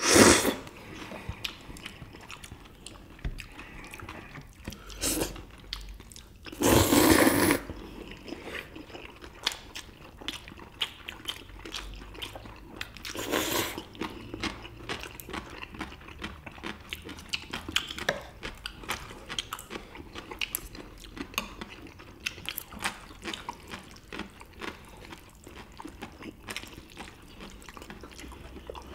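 Close-up eating sounds: steady chewing of dumplings and spicy bibim noodles, with a few short loud slurps of noodles, the loudest about seven seconds in.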